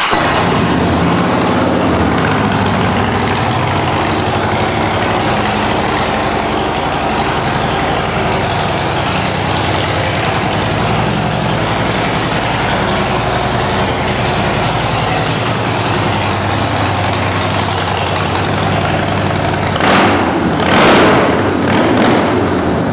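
A 2013 Harley-Davidson Dyna Street Bob's 103 cubic inch V-twin idles steadily, just after starting, through Vance & Hines Shortshot chrome two-into-two pipes. Near the end the throttle is blipped twice, giving two short rises in loudness.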